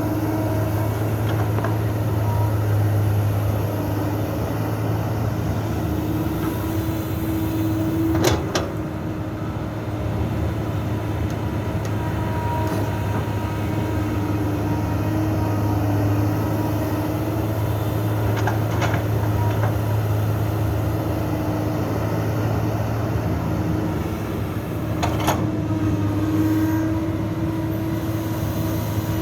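Heavy diesel engine of an excavator loading soil into a dump truck, running steadily with a slight rise and fall in pitch. Two sharp metallic clanks come through, one about a third of the way in and one near the end.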